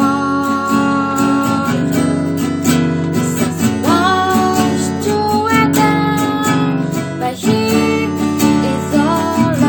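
Acoustic guitar strummed as accompaniment to a solo voice singing a slow melody, with held and sliding notes several times.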